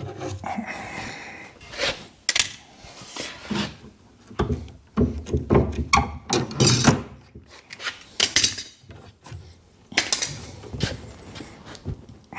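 Clamps being loosened and taken off a clamped wooden cabinet panel: irregular knocks, clicks and scrapes of the clamps' metal bars and handles against wood, busiest a few seconds in.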